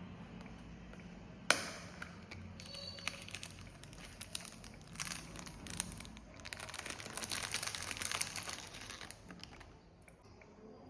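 Packaging crinkling and rustling as it is handled and opened, with scattered clicks and one sharp snap about a second and a half in.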